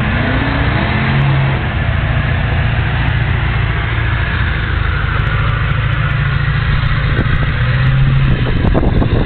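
Lifted Ford Super Duty mud truck on tractor tires, its engine running steadily as it crawls through the mud, with a brief rise in revs right at the start.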